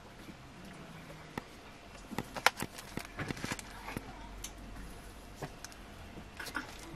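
Faint handling noise from paper sheets of flower stickers being touched and moved: a run of small clicks and crinkles, thickest about two to four seconds in, with a few more near the end.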